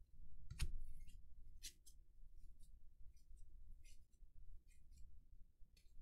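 Cardboard baseball cards being handled: scattered light clicks and rustles as cards are flicked through and slid over one another, the sharpest snap about half a second in.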